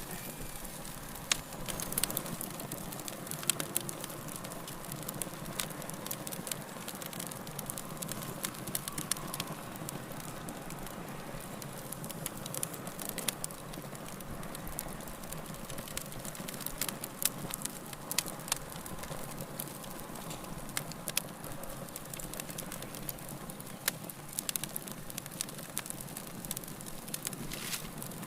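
Wood fire burning in a fireplace: a steady low hiss with frequent irregular crackles and pops.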